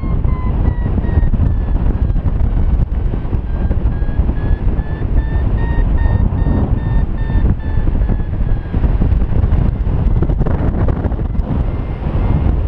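Wind buffeting the microphone of a paraglider in flight. Under it, a paragliding variometer beeps in rapid short pulses whose pitch drifts slowly up and down, the vario's climb tone.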